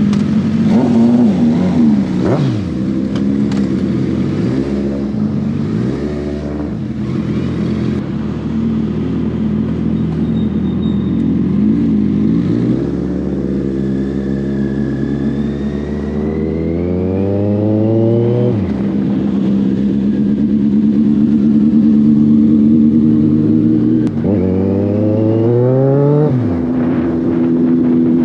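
Four-cylinder 1000cc sport motorcycle engines revving in short blips, then accelerating hard through the gears. The engine note climbs for several seconds and drops sharply at a gear change about 18 s in, then climbs and drops again near the end.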